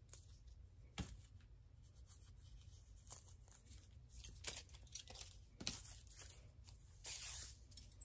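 Thin plastic tablecloth strips crinkling and tearing as they are handled and cut with scissors. Scattered faint snips and clicks, then a longer rustle about seven seconds in.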